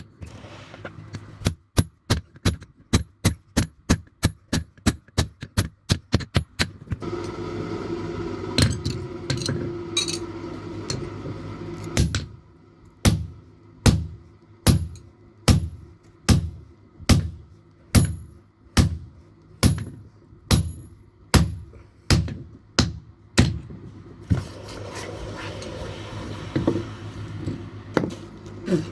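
Hand hammer striking metal on an anvil in a steady rhythm, each blow ringing: about two blows a second at first, then slower, about one blow a second, after a stretch of steady droning hum.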